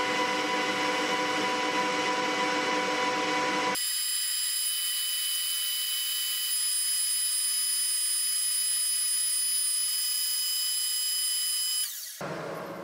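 Metal lathe running while turning a taper on a steel bar: a steady machine whine made of several constant tones. About four seconds in, the lower part of the sound drops away abruptly, leaving a thin high-pitched whine. It cuts off suddenly near the end.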